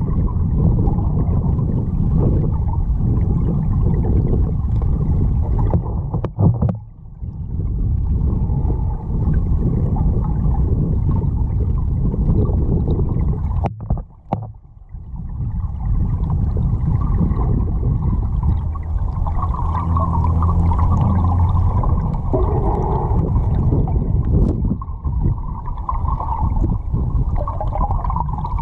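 River water rushing over an underwater camera, a dense muffled rumble that drops away briefly twice, about 7 and 14 seconds in. A faint low hum joins for a couple of seconds around 20 seconds in.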